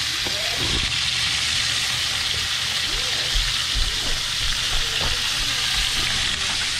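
Venison and onions sizzling steadily in a hot cast-iron skillet, with a few low thumps partway through.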